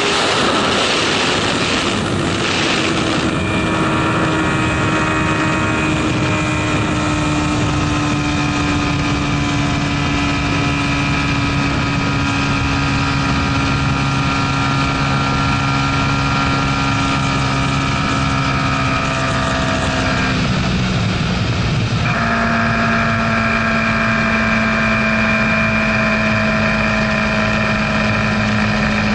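MV Agusta F4 RR superbike's inline-four engine with heavy wind rush, heard from the rider's seat. Its note falls slowly as the bike slows from high speed. About twenty seconds in the note breaks briefly, then settles to a steady cruise.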